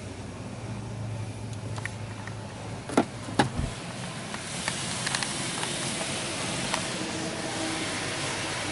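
Belanger Kondor KL1 touchless car wash spraying low-pH pre-soak onto the car, heard from inside the cabin as a hiss of spray on the body and glass that grows louder about halfway through. Two sharp knocks come about three seconds in.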